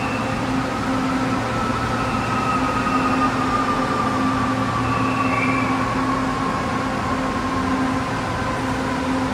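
Hyundai Rotem LRT-2 electric train slowing to a stop at the platform, its motor whine falling slowly in pitch over steady running noise, with a low hum cutting in and out.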